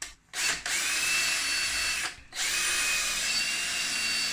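Electric drill with a small bit drilling into a solid block of wood. After a quick blip it runs for about a second and a half with a steady whine, stops briefly about two seconds in, then runs again steadily.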